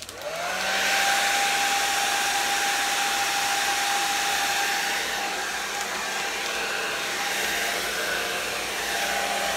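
Handheld hair dryer switching on, its motor whine rising quickly to a steady pitch, then running steadily with a rush of blown air.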